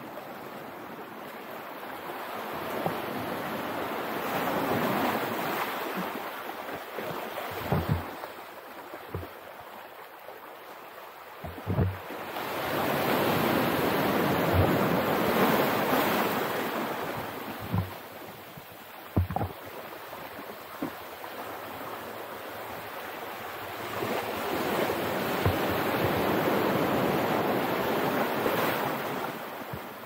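Ocean surf: waves breaking and washing in, swelling three times about ten seconds apart. Between the swells come a few short low thumps of wind buffeting the microphone.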